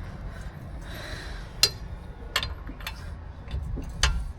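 Wheel spanner clinking against a car's wheel nuts as they are being loosened: three sharp metal clicks spread over a few seconds, over a low steady rumble.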